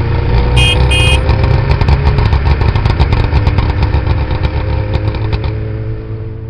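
Small engine of a motorised three-wheeler (tuk-tuk) running with a fast low putter, its pitch rising slowly as it pulls away, with two short horn beeps about half a second and a second in; the engine fades away near the end.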